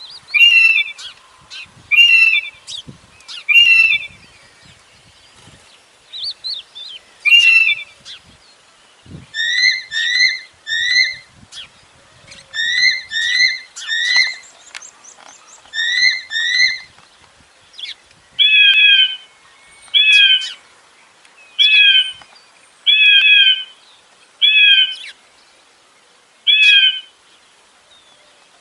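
Recorded calls of birds of prey (hawk and eagle), short sharp calls repeated every second or two. Several call types follow one another: single calls at first, then quick groups of three short down-slurred calls, then evenly spaced calls in the last third. They are played as a bird deterrent to scare off pigeons.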